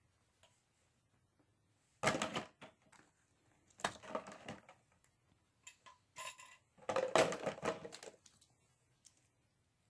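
Hard tools and their cases being handled: three bursts of clattering and clicking, about two seconds in, about four seconds in, and the longest and loudest around seven to eight seconds in.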